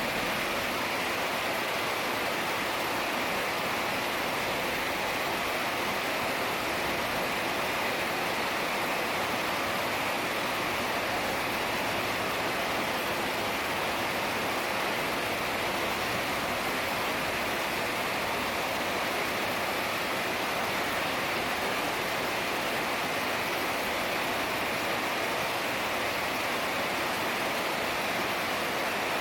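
Heavy rain falling steadily, an even hiss without distinct drops or thunder.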